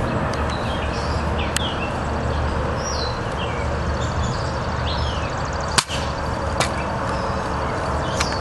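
An M14 airsoft sniper rifle fires once, a single sharp crack nearly six seconds in, with a smaller click earlier. Birds chirp over steady outdoor background noise.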